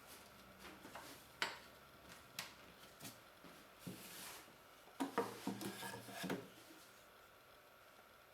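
Light knocks, clicks and rubbing of objects being handled, with a quick run of clattering taps about five seconds in.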